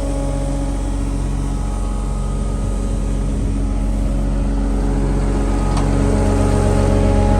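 Volvo PF6170 asphalt paver's Cummins diesel engine idling steadily, slowly getting louder toward the end.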